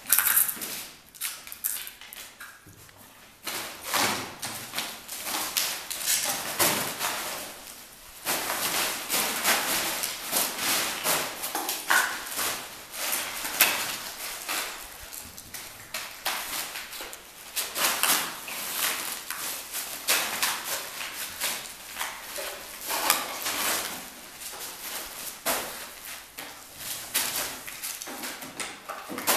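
German shepherd searching over cluttered debris: claws clicking on a tiled floor and plastic sheeting crinkling and rustling under its paws, coming and going.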